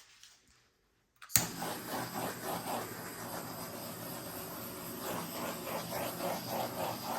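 A steady mechanical whirr, like a fan or small motor, with a faint pulsing about twice a second. It starts abruptly about a second in, after near silence.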